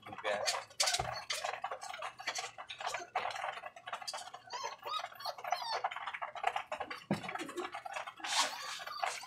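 Domestic pigeons pecking and scuffling on a wire cage floor: dense, irregular rapid clicks and taps.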